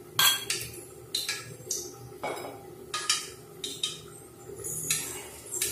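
Cookware clinking: a string of sharp, irregular metallic clinks and ticks, about a dozen, coming closer together near the end, as oil heats in an aluminium kadai.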